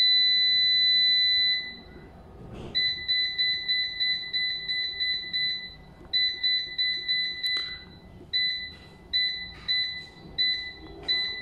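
Crown Xavier 5.6kW hybrid inverter's panel buzzer beeping as its touch keys are pressed and held to scroll through settings programs. One long beep, then a held tone of about three seconds, then a run of short beeps about two a second.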